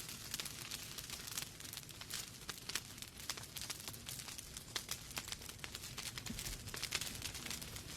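Wood fire crackling in a fireplace: a steady run of sharp pops and snaps, many a second, over a soft low rumble of burning.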